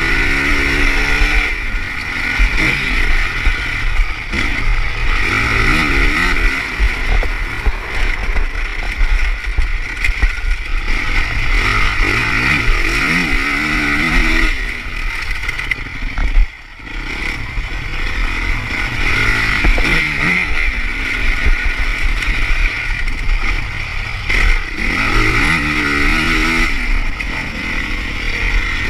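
Honda motocross bike's engine running hard under the rider, its pitch rising and falling again and again as the throttle is opened and closed. About halfway through the engine noise drops off for a moment, then picks up again.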